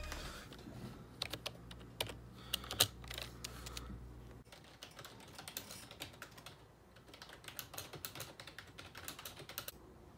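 Typing on a computer keyboard: quick, irregular key clicks in short runs. A faint low hum underneath stops about four seconds in.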